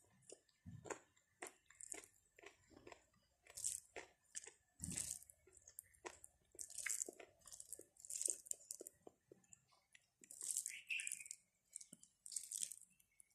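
Eating rice and curry by hand: fingers squeezing and mixing cooked rice on a plate, along with chewing. A faint, irregular run of small wet clicks and crunches.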